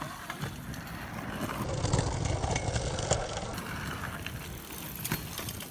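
A BMX bike's tyres rolling over the paved pump track, getting louder about a second and a half in as the rider passes close, over a low rumble of wind on the microphone, with a couple of sharp clicks near the middle and end.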